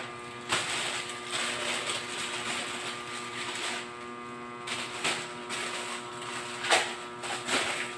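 Rustling and handling of a newly unboxed bag, with a few short louder scrapes, over a steady electrical hum.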